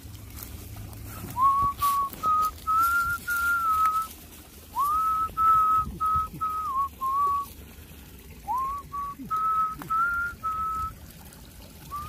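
A person whistling a tune in short phrases with pauses between them. Each phrase opens with an upward slide into a run of held notes.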